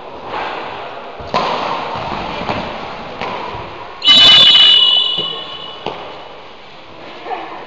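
A sharp referee's whistle blast about four seconds in, held under a second and fading in the hall's echo, marking a goal in cycle ball. Before it, a few echoing knocks of the ball being struck by bicycle wheels on the wooden gym floor.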